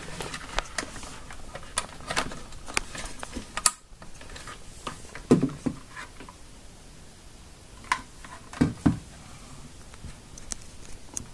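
Scattered clicks and a few louder knocks of an Ethernet cable being handled and its RJ45 plug pushed into the port on the back of a cable modem.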